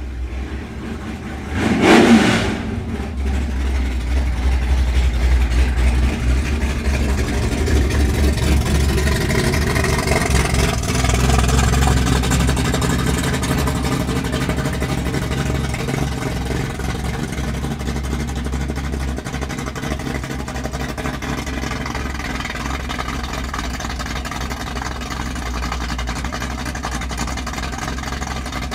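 Car engine running with a steady deep rumble, a loud burst about two seconds in, then revving up with rising pitch before settling back to an even run.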